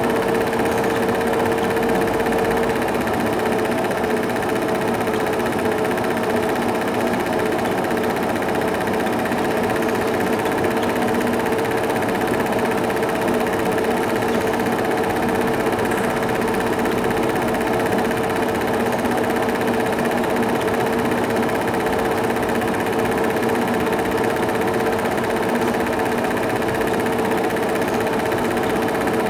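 Cine film projector running: a steady mechanical whir with a constant hum. It does not change when the picture cuts from one shot to the next.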